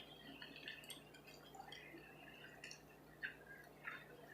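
Near silence: quiet room tone with a few faint, brief clicks.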